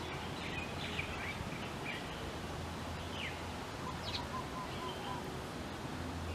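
Wind blowing over the microphone as a steady low rush, with scattered short high chirps and quick downward-sweeping calls from songbirds, and a brief run of lower, evenly spaced notes about four seconds in.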